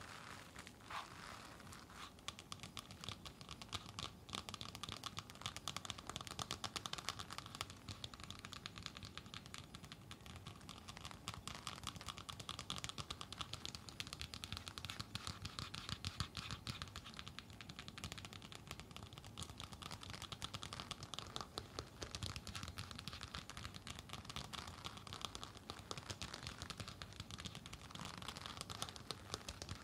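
Fingernails tapping and scratching quickly on an LED face mask, a dense, uneven run of small clicks.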